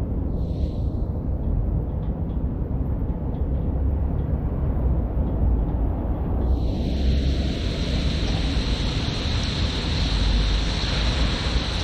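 Wet city street ambience in the rain: a steady low rumble. About six and a half seconds in, a loud hiss joins it and holds.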